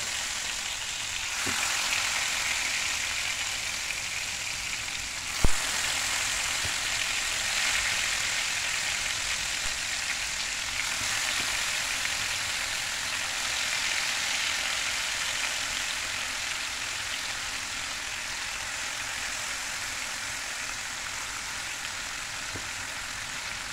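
Marinated chicken pieces sizzling steadily in hot oil in a frying pan as more pieces are laid in. A single sharp tap about five seconds in.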